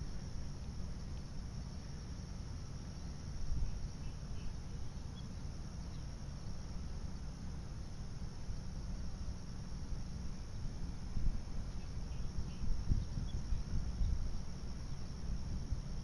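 Steady insect chorus of crickets, a thin high trill that does not change, over a low rumble with occasional soft bumps.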